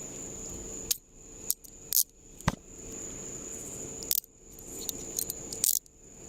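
Metal handcuffs being put on a person's wrists: a series of sharp metallic clicks and clinks, spread unevenly with a few close together in the first seconds and a couple more later. Crickets chirp steadily in the background.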